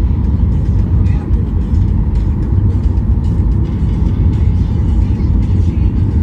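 Steady, loud low rumble of a Boeing 737 airliner's cabin, heard from inside the aircraft, with music playing faintly over it.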